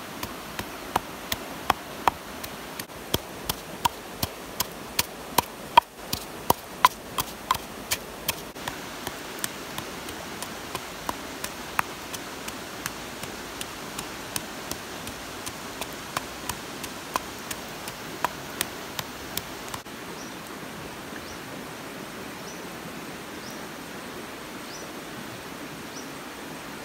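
Wooden pestle pounding chilies in a wooden mortar: sharp knocks about two a second, thinning out to sparser clicks after the first several seconds, over a steady hiss.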